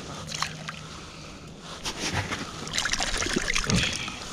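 Water sloshing and trickling in an ice-fishing hole, with scattered short clicks and rustles of handling, busier from about two seconds in.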